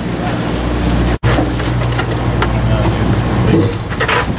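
Fishing boat's engine running with a steady low hum, with scattered indistinct voices and clatter on deck; the sound cuts out for an instant about a second in.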